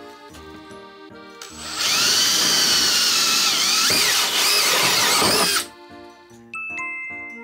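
Cordless drill driver spinning a 28 mm bimetal hole saw through the wall of a clear plastic storage box. The loud cutting whine, wavering in pitch, starts about a second and a half in and lasts about four seconds before stopping abruptly as the saw breaks through.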